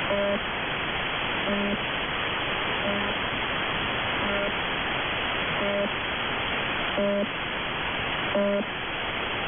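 UVB-76 'The Buzzer' shortwave station on 4625 kHz, received on a software-defined radio in upper sideband: short, low buzzes repeat about once every 1.4 seconds over a steady hiss of radio static. This is the station's new buzz tone, which sounds cheap.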